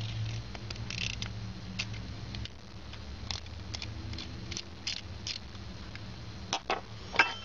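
Light, irregular clicks and scrapes of small metal parts being handled as the Zippo insert's flint spring is fitted back, with one sharper click near the end, over a low steady hum.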